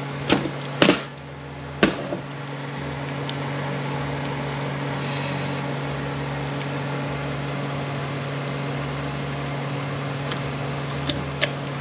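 A few sharp metallic clicks, then a steady whirring, hiss-like machine noise for several seconds, with more clicks near the end, over a constant low shop hum.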